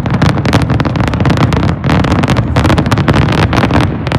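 Dense fireworks barrage: many rapid, overlapping bangs and crackles that run together over a constant low rumble.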